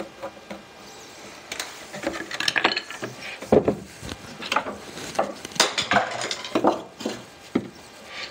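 Metal drawer slide clinking and a wooden drawer box knocking against the workbench as they are handled: a quiet start, then from about a second and a half in a run of irregular clinks and knocks.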